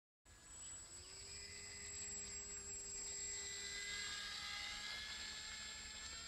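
Motor and propeller of a radio-controlled model trike in flight: a steady whine of several tones whose pitch rises a little and then falls as it passes.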